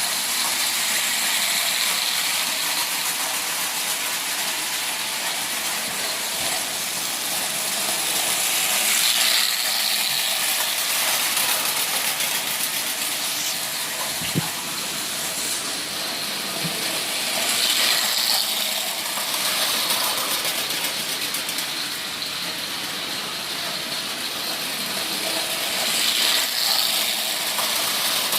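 Pre-war Marx O-gauge toy train running steadily around a loop of tinplate track. Its rolling noise swells each time it comes round close by, about every eight or nine seconds, and there is one sharp click about midway.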